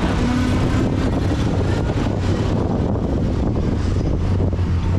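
A vehicle engine running steadily, a low even hum under a noisy rumble.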